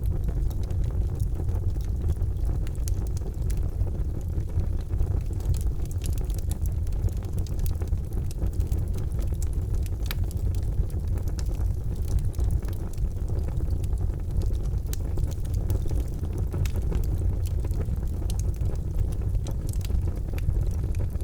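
Charcoal fire burning with a steady low rumble, dotted with scattered faint crackles and pops.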